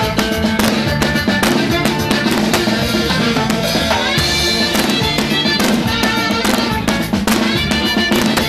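Live band music heard close to the drum kit: a steady, driving beat of kick drum, snare and cymbals over bass and other pitched instruments.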